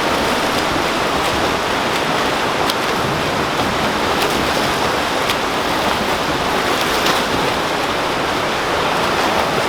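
Steady rush of churning, splashing pool water as swimmers swim laps, with a few faint sharp ticks.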